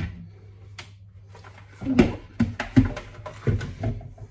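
Kitchen utensils and dishes being handled: a quick run of knocks and clatters, about five in two seconds, starting about halfway through, over a steady low hum.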